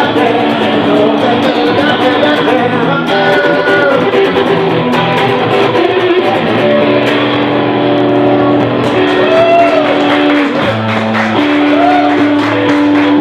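Live blues-rock band music: an electric guitar plays a lead with bent, sustained notes over steady bass notes.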